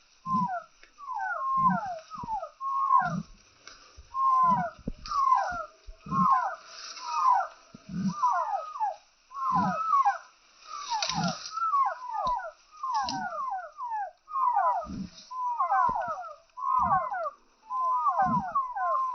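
Chickens calling: a busy run of short, falling calls, with a low cluck about once a second underneath.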